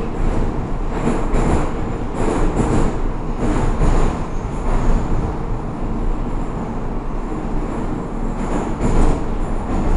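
Cabin noise of an 81-556 NeVa metro car running through a tunnel: steady rumble of wheels on rail, with repeated pairs of clacks about once a second.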